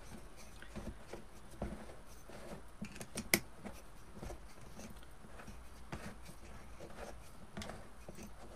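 Pliers turning a metal hanger bolt into a wooden candlestick by hand: faint scattered clicks and short scrapes, with one sharper click about three seconds in.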